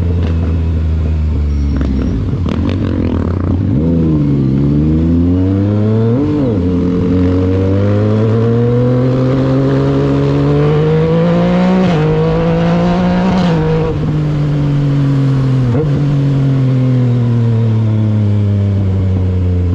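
Yamaha MT-09's three-cylinder engine running under way, its pitch climbing and falling, broken by several short, sudden dips as gears are changed with the quickshifter. Near the end the engine note slowly falls away.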